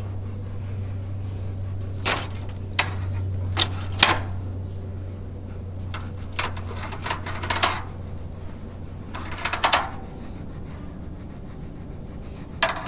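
Scattered clicks and metal clanks from a charcoal grill being handled: the lid and grate being moved and a knife working on the grate. A low steady hum underneath fades out about two-thirds of the way through.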